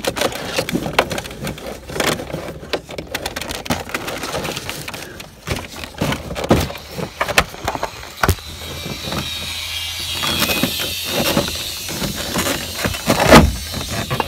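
Hands working on the mirror wiring and trim inside a pickup's door: irregular clicks, knocks and rustling of plastic and wire being handled. A steady hiss with a low hum comes in about eight seconds in.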